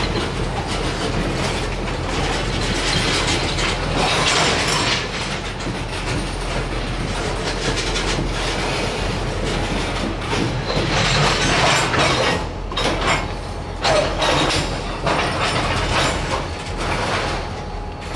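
Freight cars rolling past on steel wheels: a steady rumble and clatter over the rails, swelling loud several times, with a brief wheel squeal about fourteen seconds in.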